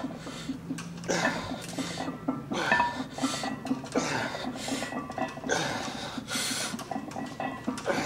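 A man exhaling hard in short, forceful breaths, roughly one every second, while pressing a loaded barbell on a bench.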